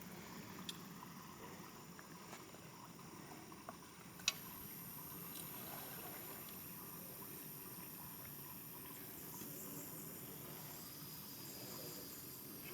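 Quiet outdoor ambience with a thin, steady high-pitched insect drone, which gets louder after a sharp click about four seconds in. A few fainter ticks come before the click.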